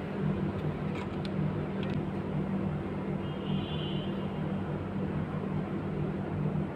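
Steady low machine hum with a constant low drone over background noise, a faint short high tone about three and a half seconds in.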